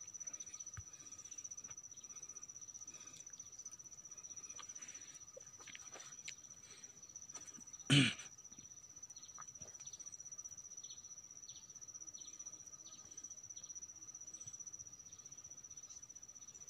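Steady, high-pitched trill of insects such as crickets, with a fainter lower insect drone under it. One short, loud sound comes about eight seconds in.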